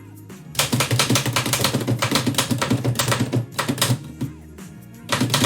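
Rapid typing on a 1918 Oliver manual typewriter: quick runs of key strikes begin about half a second in, break off for about a second, and resume near the end. Quiet background music plays underneath.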